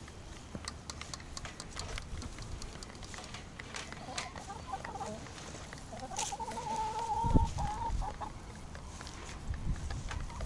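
A flock of laying hens clucking as they feed, with many quick sharp taps of beaks pecking at the feed dish. About six seconds in one hen gives a drawn-out call lasting a couple of seconds, and a low thump comes just after seven seconds.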